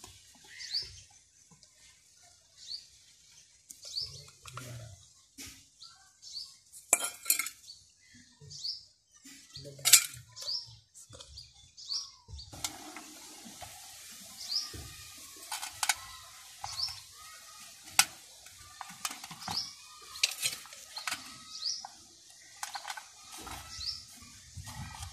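Metal pot fish trap clinking and knocking as it is handled and set, with sharp metallic knocks now and then. A bird's short rising chirp repeats about once a second.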